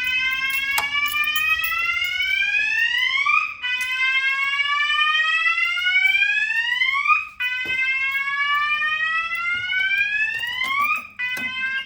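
Fire alarm sounders of an Alpha 1 fire alarm system sounding a slow rising sweep tone, set off by a manual call point in a test. Each sweep climbs for about three and a half seconds and restarts. The third sweep breaks off into a short steady tone, which cuts out near the end.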